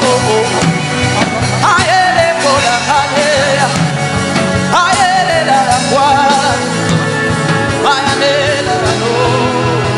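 Worship music with sustained instrumental backing and a voice singing wordless, wavering phrases over it, each starting afresh every few seconds.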